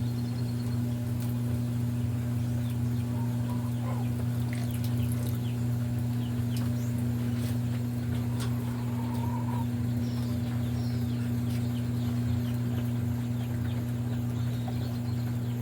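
Birds calling and chickens clucking faintly over a steady low hum, with short chirps and brief whistled glides scattered through.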